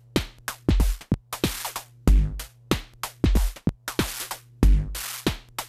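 Sequenced electronic drum beat from modular synth voices: deep kick and sub-kick hits, snare and hi-hats. The hits fall in an uneven pattern as the mixer's clocked sequencer switches the channels on and off. A steady low hum sits underneath.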